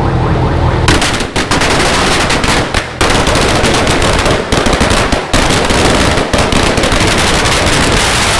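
Sawa firecracker string, a 1000-round Rambo Thunder, going off in a rapid, continuous chain of sharp bangs starting about a second in, with a few brief breaks in the chain.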